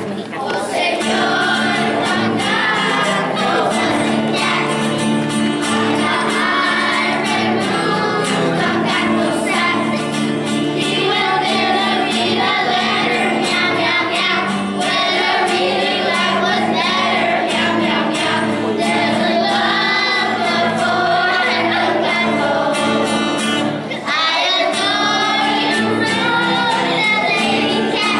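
A class of children singing a song together, accompanied by a strummed acoustic guitar.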